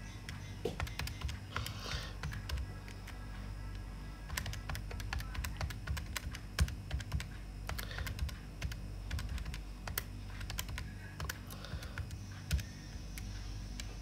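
Calculator keys being pressed: a run of irregular light clicks, several a second at times, as a long expression is keyed in to get a result.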